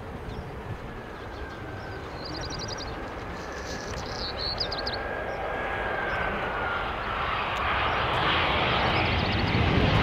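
Jet engines of an Airbus A319 growing steadily louder as the airliner approaches, with a high engine whine that slides down in pitch about two-thirds of the way through. A few short high chirps sound about two and a half and four and a half seconds in.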